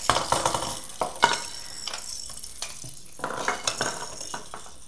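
Hard plastic baby toys and rattles hanging from a stuffed pillow, clicking and clattering against each other and the table as the pillow is moved, in irregular bursts.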